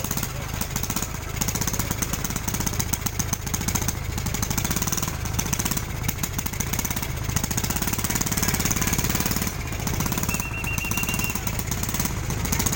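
A small motor running steadily with a rapid, even rattling pulse and a low hum. A short high beep sounds about ten seconds in.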